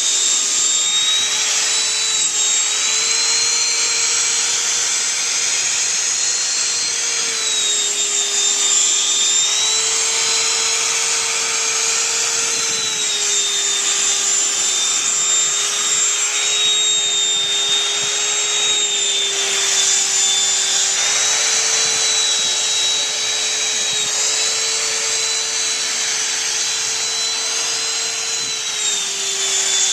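Black and Decker Dustbuster hand vacuum running steadily while vacuuming a long-haired cat's coat, a motor whine over a rushing hiss, its pitch stepping slightly up and down every few seconds.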